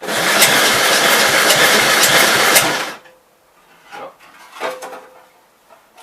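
Gravely L's single-cylinder engine being turned over hard by its starter for about three seconds, with a fast pulsing beat, then cutting off suddenly. The owner thinks the starter is bad. A couple of faint clunks follow.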